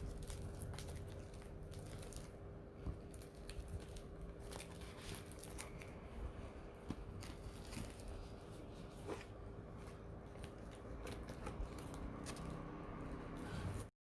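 A parcel's packaging being cut and torn open by hand, with scattered sharp clicks, snips and crinkles. It cuts off suddenly near the end.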